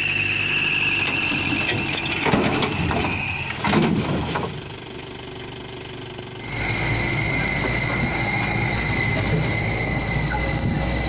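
Mahindra Bolero pickup moving on a rough dirt track, with a steady high-pitched squeal and a few knocks in the first half. It drops quieter briefly, then from about six and a half seconds in a louder low rumble of engine and tyres comes in under a new steady high whine.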